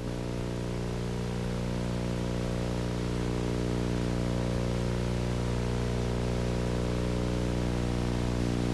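Steady low electrical hum with a buzzy stack of overtones, under an even hiss.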